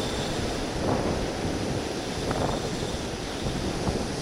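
Steady wind noise buffeting a small camera microphone, over the wash of surf on the rocks.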